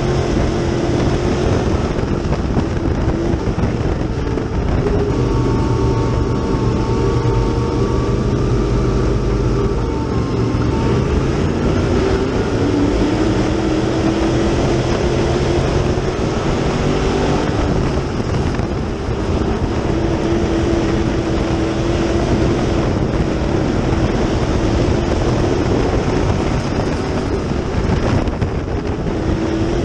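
Dirt late model race car's GM 602 crate V8 running hard at racing speed, heard from inside the car: a loud, continuous engine note whose pitch rises and falls through the laps.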